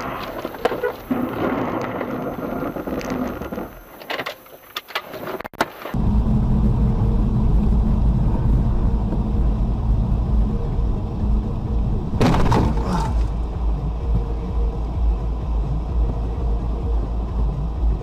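Dashcam recording of a car driving on winter roads: the cabin's road and engine noise. After a cut about six seconds in, the sound turns into a louder, steady low rumble of tyres and engine. A brief harsh rattle comes about two-thirds of the way through.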